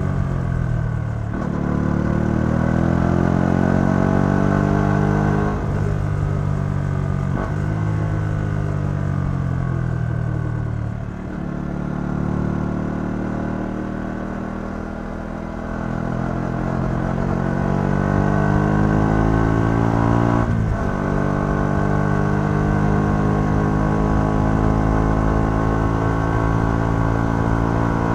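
Yamaha XSR 125's single-cylinder four-stroke engine through its stock exhaust, accelerating through the gears: the pitch climbs and drops at each upshift, about a second in and again around 5, 7 and 11 seconds. It then eases off, pulls up again with another shift about 20 seconds in, and cruises at a steady pitch to the end.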